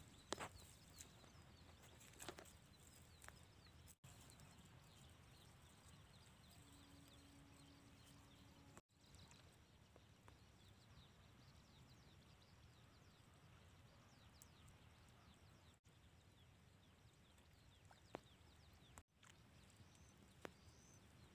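Near silence: faint outdoor background with a few soft clicks, the strongest just after the start.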